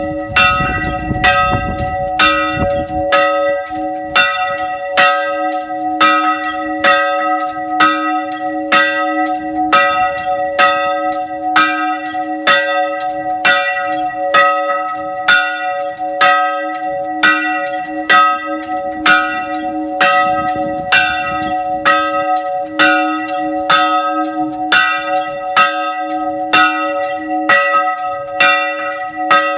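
Church bell ringing, struck in rapid, even strokes, more than one a second, each stroke ringing on into the next so the bell's hum never dies away.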